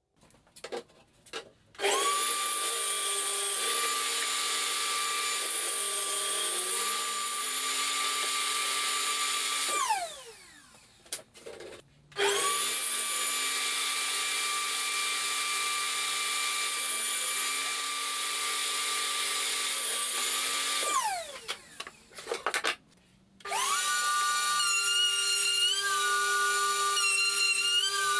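Metabo TS254 table saw switched on, ripping drawer boards and coasting down twice: each run spins up to a steady whine that sags briefly as the blade cuts, then falls away in pitch when switched off. Near the end a router starts and runs steadily.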